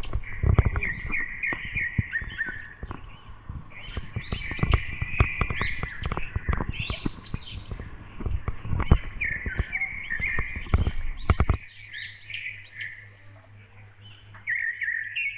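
Many small birds chirping busily, over frequent thumps and scuffs from the jostling walking camera. About twelve seconds in, the thumps stop abruptly, a low hum is left, and the chirping comes back near the end.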